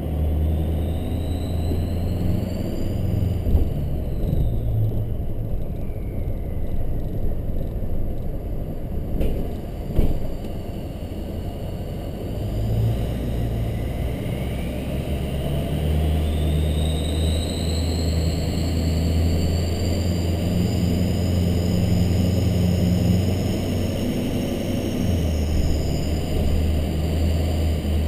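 Ford 6.0 Powerstroke V8 turbodiesel running with a low rumble, its turbocharger whistling over it. The whistle falls in pitch in the first few seconds, then rises steadily from about halfway in as the turbo spools up, with a second whistle slowly falling. A single sharp knock comes about ten seconds in.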